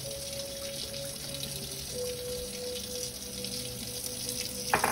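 Curry chicken sizzling and bubbling steadily in a hot pan, with a single clank near the end, over soft background music.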